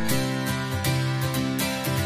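Background instrumental music with plucked, guitar-like notes over sustained tones.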